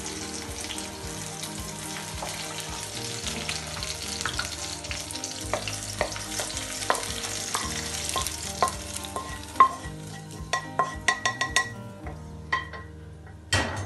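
Sliced chilies, garlic and shallots sizzling in a hot wok as a wooden spatula stirs them, the sizzle dying down once the heat is off. From about ten seconds in, a run of clicks and taps as the spatula scrapes them out into a stone mortar, with one loud knock near the end.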